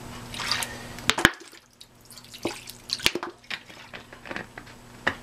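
Hands handling raw pork spare ribs that are wet from a salt, vinegar and lemon soak, on aluminium foil: wet squishing and dripping with foil crinkling. A couple of sharp knocks come about one second and three seconds in.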